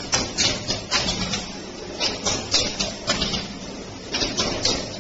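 Concrete pile cage welding machine welding spiral wire onto a rotating steel reinforcement cage: irregular sharp hissing crackles of the welds, several a second, over a steady low machine hum.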